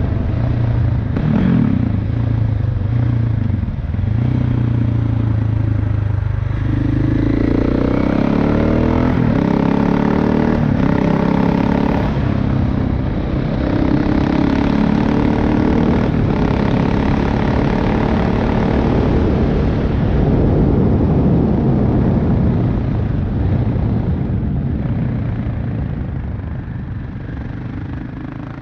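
KTM 690 Enduro R's single-cylinder engine and exhaust under way, running steadily and rising in pitch as it revs up about a quarter of the way in. The sound fades gradually near the end.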